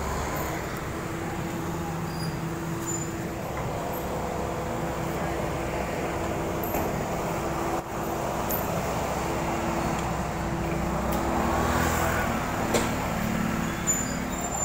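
Street traffic noise with a motor vehicle engine running steadily, its note rising near the end.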